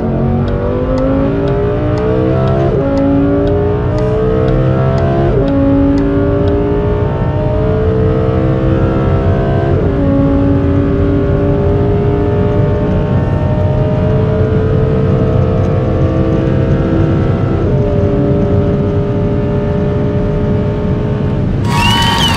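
Lamborghini Huracán Performante's naturally aspirated V10 on its stock exhaust, pulling hard at full throttle. Its pitch climbs steadily through four upshifts, each gear held longer than the last. Near the end the sound switches abruptly to a harsher, brighter noise.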